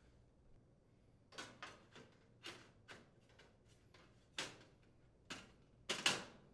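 Metal stop bracket being fitted against a gas range's sheet-steel side panel and its screw started with a Phillips screwdriver: about nine short clicks and knocks at uneven intervals, the two loudest close together near the end.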